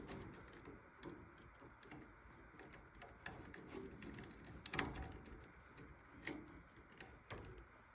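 Faint, scattered clicks and light knocks of blower parts and tools being handled during reassembly, the loudest about five seconds in.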